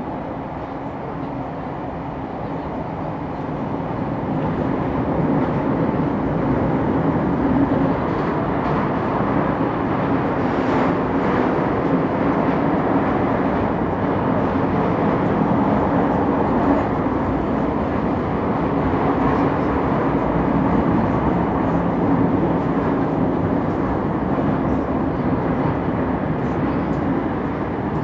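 Interior noise of a CAF-built metro train running, heard inside the carriage: a steady rumble of wheels on rails that grows louder over the first few seconds, with a faint high whine that rises and then falls in pitch.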